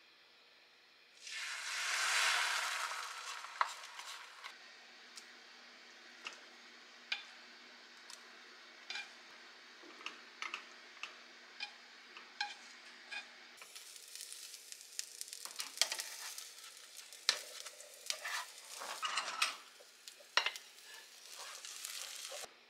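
Beaten egg poured into hot oil in a frying pan hits with a loud sizzle about a second in, which settles into a steady quieter sizzle broken by sharp taps of chopsticks on the pan. From about halfway on, the frying mixes with busier clatter and scraping as stir-fried cabbage and pork are scraped out of a second pan onto the egg.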